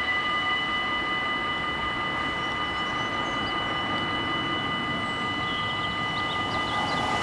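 Dutch automatic half-barrier level-crossing bells ringing steadily as the barriers lift after the train has cleared.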